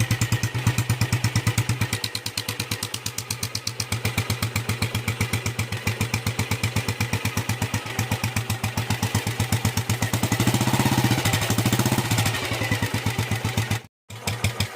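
Meguro motorcycle engine idling through its exhaust silencer, a steady, even pulse, swelling a little louder for a couple of seconds about ten seconds in. The sound drops out for a split second near the end.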